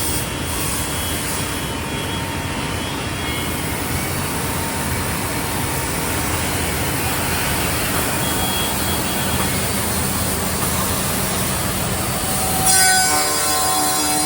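Four-axis CNC wood router cutting wood, a steady, loud, noisy machining sound. Near the end it changes to a steady whine of several held tones.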